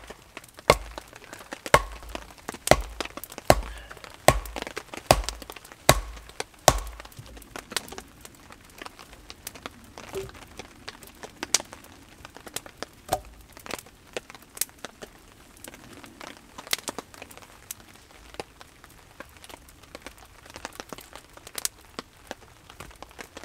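Wooden stake being pounded into the ground with a short log: about nine heavy wood-on-wood knocks, a little under a second apart, stopping about seven seconds in. After that come lighter scattered knocks and clicks as split logs are set in place and the campfire crackles.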